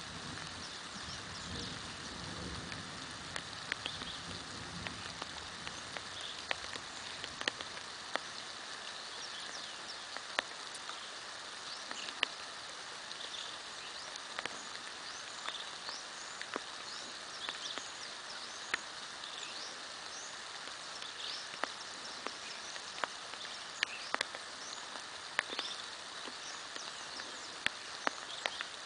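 Steady rain falling, with scattered sharp drops landing close by and small birds chirping through it. A low sound fades out in the first few seconds.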